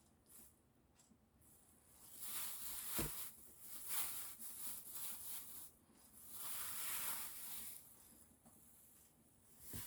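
Rustling as tomatoes are handled on a kitchen table, in two stretches a few seconds long, with one light knock about three seconds in.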